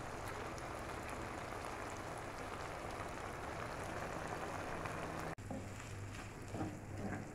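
Chicken pieces and boiled eggs simmering in a dark sauce, a steady dense bubbling sizzle. After a cut about five seconds in, minced meat with spring onions frying in a pan, a lower sizzle with a few knocks from stirring.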